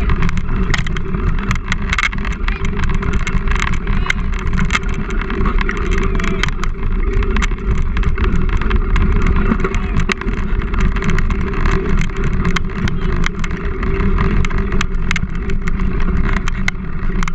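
Wheels rolling fast over a dirt trail: a steady rumble with many small clicks and rattles from the bike or scooter over the bumps.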